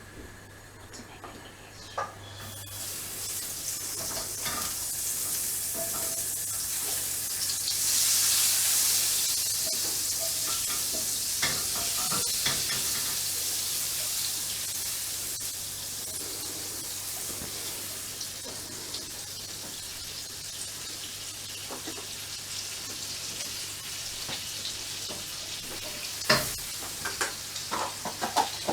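Food sizzling in hot oil in a pan. The sizzle starts suddenly about two and a half seconds in, is loudest a few seconds later, then settles to a steady sizzle with occasional clicks of a utensil stirring against the pan.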